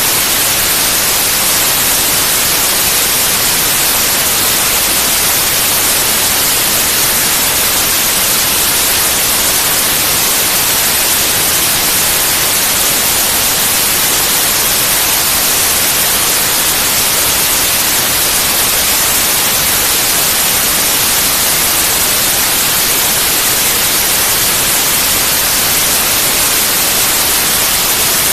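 Steady, unchanging white noise: an even, loud hiss, strongest in the highs.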